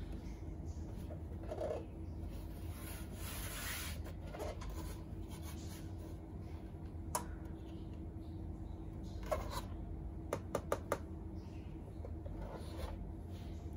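Handling noise of a plastic mechanical bathroom scale being turned over and moved about on a surface: soft rubbing and scraping, with a sharp click about seven seconds in and four quick clicks about ten to eleven seconds in. A steady low hum runs underneath.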